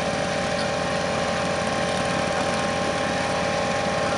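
Portable fire pump's engine idling steadily on its platform, ready for the start of a fire-sport attack.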